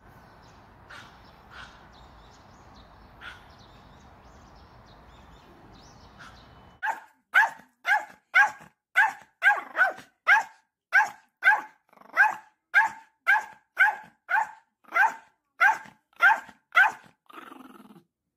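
Small Yorkshire terrier barking over and over: sharp, high-pitched barks about two a second, starting about seven seconds in and stopping near the end. Before the barking there is only faint background noise.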